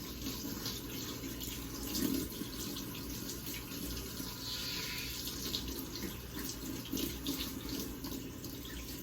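Water running steadily from a tap or shower head during a bath, a continuous splashing hiss, with a short louder low sound about two seconds in.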